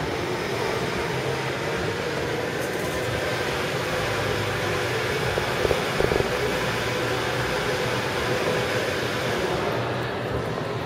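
Steady background noise of a large shopping-mall concourse: a constant hum with a low rumble underneath and a few faint clicks around the middle.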